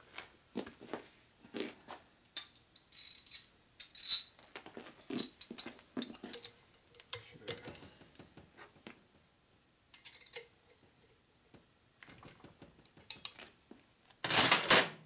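Steel Allen keys and hand tools clicking and clinking against the metal of an engine on the bench, with several ringing metallic clinks as keys are tried on a set screw. A loud, brief clatter comes near the end.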